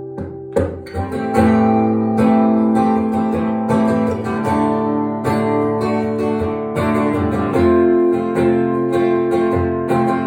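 Instrumental passage of a song: a guitar strumming chords, quieter for about the first second and fuller after that.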